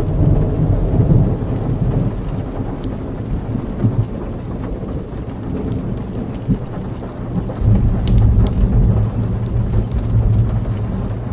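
Rainfall with rolling thunder: a low rumble that swells in the first couple of seconds and again near the end, over a steady patter of rain, with a few sharp drop ticks.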